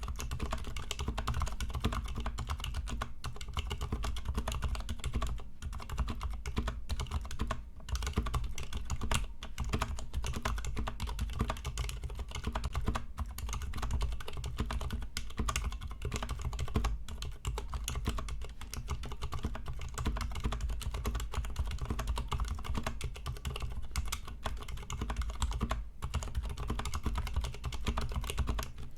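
Steady, fast typing on a Ducky x Varmilo Miya Pro mechanical keyboard with Cherry MX Silent Black linear switches, unlubricated and with no case foam. Dense key presses run on with only a few brief pauses.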